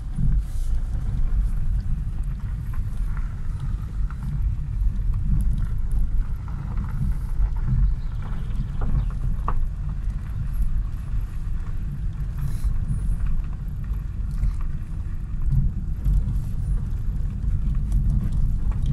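Car driving on a gravel road, heard from inside the cabin: a steady low rumble of engine and tyres on the gravel, with a few faint small knocks scattered through it.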